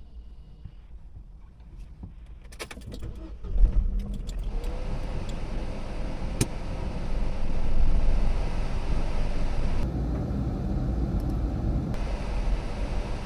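A car engine starting: a few clicks, then it catches with a sudden burst about three and a half seconds in and settles into a steady low running rumble. It swells around eight seconds in as the car pulls away.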